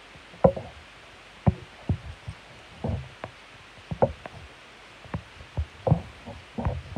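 A dozen or so irregular knocks and taps, coming at uneven intervals about half a second to a second apart, some with a short dull thud.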